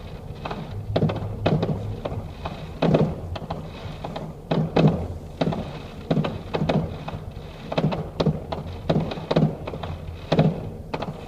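Fireworks bursting overhead: an irregular series of sharp bangs, about two a second, over a low rumble.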